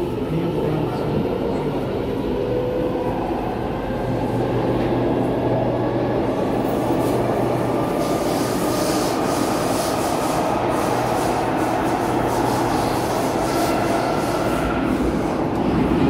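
SMRT C751B metro train (Kawasaki / Nippon Sharyo electric train) pulling away from a station and gathering speed, heard from inside the car. The traction motors whine, rising slowly in pitch, over a steady rumble of the wheels, and a busier rattling noise sets in from about seven seconds in as the train runs into the tunnel.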